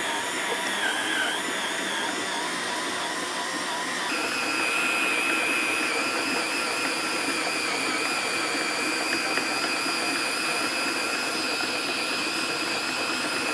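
Makita cordless drill's motor and gearbox whining steadily as it turns a hand-crank meat mincer with its load of meat almost all ground through. About four seconds in the whine steps up in pitch as the drill speeds up, then holds.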